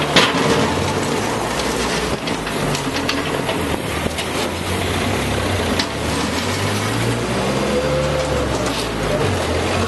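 Yanmar BV25 excavator's diesel engine running, its note shifting up and down as it works, with scattered metallic clanks and rattles and a sharp knock just at the start.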